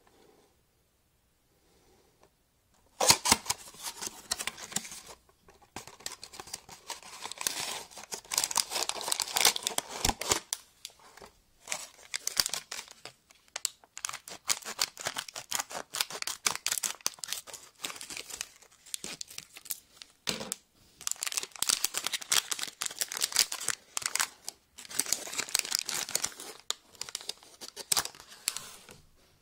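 A foil bath-bomb packet being crinkled, snipped with scissors and torn open, in irregular bursts of crackling that start about three seconds in.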